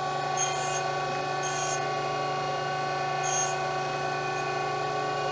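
Brown & Sharpe 618 Micromaster hydraulic surface grinder running, giving a steady many-toned hum and whine. Short high hissing bursts come about three times, one to two seconds apart.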